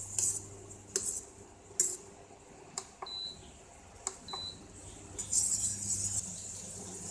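A steel spoon stirring jam mix in a stainless steel pot, clinking against the pot's side a few times and scraping the bottom near the end. Two short high beeps come from the induction cooktop in the middle.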